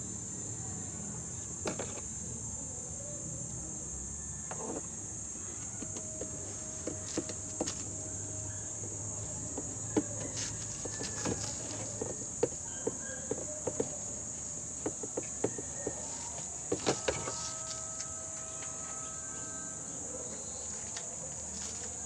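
Steady high-pitched chirring of insects in the background, with scattered light clicks and knocks from handling washing-machine parts, most of them in the second half.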